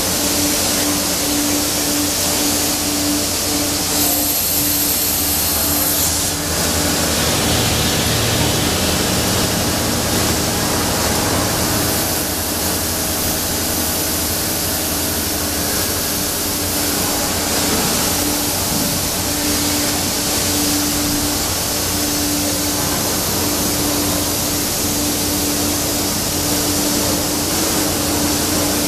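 SHW vertical machining center running under power: a steady rushing hiss of its running units, with a hum that fades out for a while in the middle and comes back.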